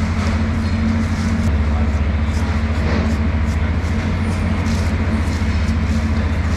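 A steady low machine drone, like an engine or compressor running, under repeated scrapes of a large knife blade drawn along a sailfish's skin to strip off its scales.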